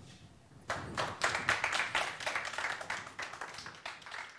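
Audience applauding: many hands clapping, starting about a second in, thinning out toward the end, then cut off suddenly.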